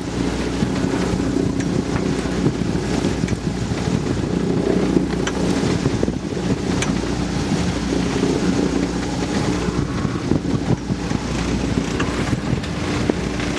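Wind buffeting the microphone and the sea rushing past the hull of a sailboat under way, over the steady drone of its auxiliary engine, with a few faint ticks.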